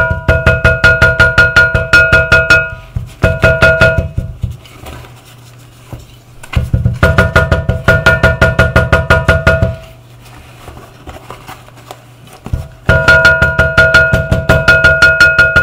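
Rapid hammer blows, about seven a second, pounding a freshly glued shoe sole down to press the glue bond; each blow rings with the same tone. The hammering comes in four runs with short pauses between them.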